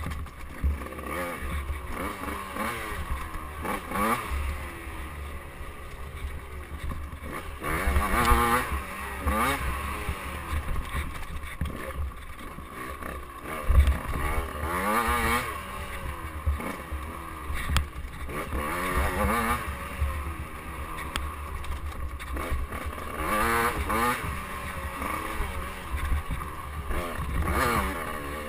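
KTM 85cc two-stroke dirt bike engine under riding load, revving up in rising whines and dropping back again and again. A single sharp thump comes about halfway through.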